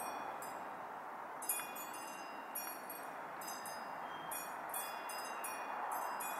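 Metal wind chimes ringing, struck again and again in an irregular run about every half second. Each strike leaves several high tones hanging. A steady background hiss runs underneath.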